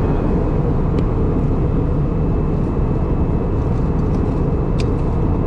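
Steady, unbroken noise of a vehicle in motion: an even rumble and rush with no pauses or changes.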